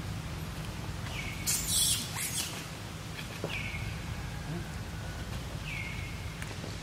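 Short high animal calls repeated about every two seconds, each dropping quickly in pitch and then holding steady for about half a second, over a steady low rumble. About a second and a half in comes a brief, louder rustling noise.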